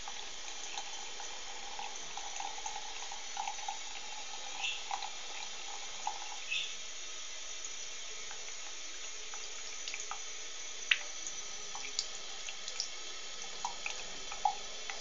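Tap water running steadily into a bathroom sink and over a budgerigar bathing under it, with a few brief sharp sounds scattered through.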